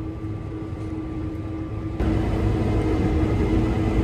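Case IH combine running during soybean harvest, heard from inside the cab: a steady drone over a low rumble. About halfway through it suddenly gets louder and noisier.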